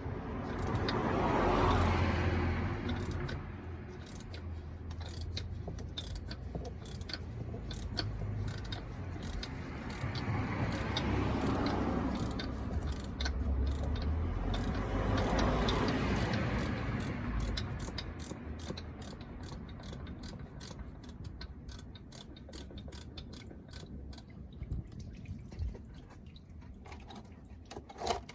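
Ratchet wrench clicking in quick strokes during a car oil and filter change, with a rushing noise that swells up three times.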